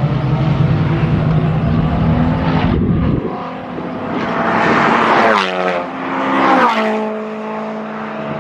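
Holden Commodore VE SS ute's 6.0-litre V8 running hard on a race track. The revs drop about three seconds in, then the engine pitch falls steadily around five to seven seconds in, as when braking and shifting down for a corner, before it holds steady again.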